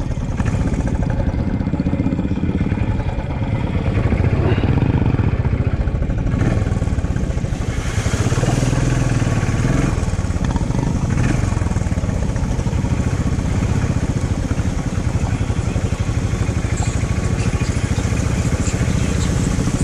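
Motorcycle engine running steadily while riding off-road, with a continuous low rumble. A brighter noisy hiss joins it about six seconds in.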